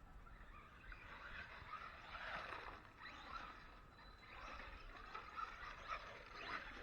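Arrma Big Rock 3S RC monster truck's brushless electric motor whining faintly as the truck speeds up and slows down, in repeated swells.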